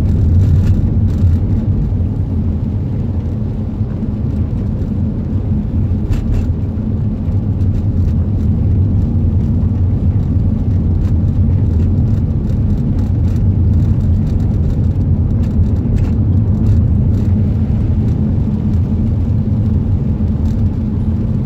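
Steady road noise inside a moving car: a low engine and drivetrain hum with tyres running on a wet road.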